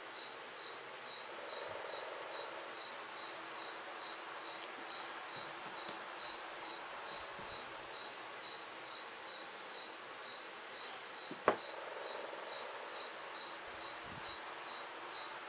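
Insects chirping steadily: a high, fast-pulsing trill with a slower chirp under it repeating about two or three times a second. One sharp click about eleven and a half seconds in.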